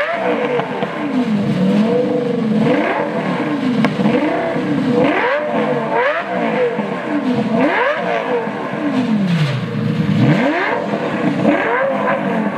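V10 sports car with oversized megaphone exhaust tips being revved repeatedly at a standstill: each blip climbs quickly and falls away more slowly, one every second or two. The exhaust is very loud.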